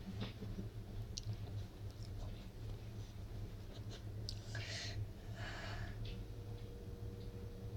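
Quiet room tone with a steady low hum and faint scattered clicks, and two short breathy hisses of a person whispering about four and a half to six seconds in. A faint steady tone comes in about six seconds in.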